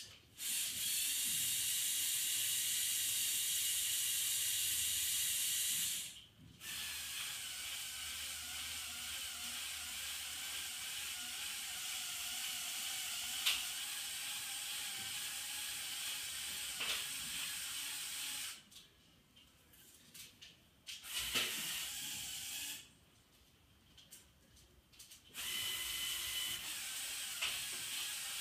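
Electric motors and gear train of a motorised LEGO Technic mobile crane whirring as the boom is lowered. The whirring runs in stretches: it drops out briefly about six seconds in, stops for a couple of seconds about two-thirds through, runs briefly, stops again and starts once more near the end.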